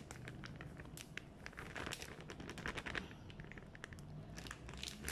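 Plastic bag crinkling faintly in a run of small, irregular crackles as rice flour is shaken out of it into a plastic tub.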